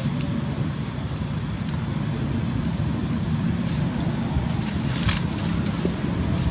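Steady low rumble of wind buffeting the microphone, with one brief crackle about five seconds in.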